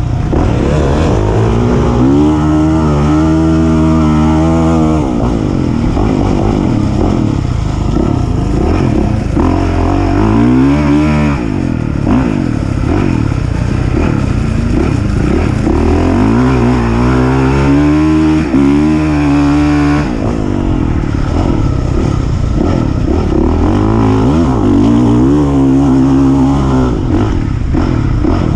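Off-road racing engine at full throttle, revving up and shifting, its pitch climbing and falling back several times as it pulls through the gears.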